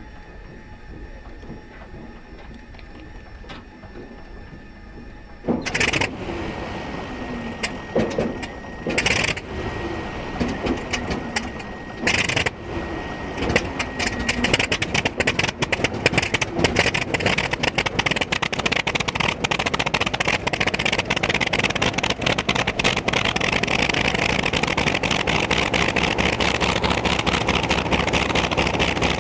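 A Hawker Sea Fury racer's big piston radial engine starting up. A steady starter whine gives way about five seconds in to the engine catching with a few loud bangs and rough, uneven firing for several seconds. It then settles into a fast, even run that grows louder near the end as it runs up.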